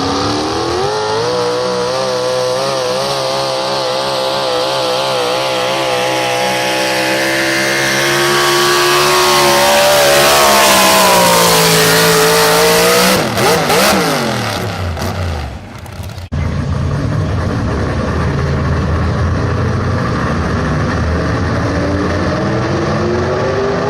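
Super Stock 4x4 pulling truck's engine at full revs under load, its pitch rising at the start and wavering as it pulls. About ten seconds in the revs fall away, break up and cut off sharply around sixteen seconds, after which a lower, steadier engine runs and climbs near the end.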